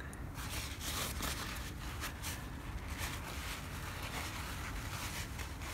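Paper towel rustling in the hands as a small metal safe-lock part is rubbed clean in it, a quick irregular run of soft rustles.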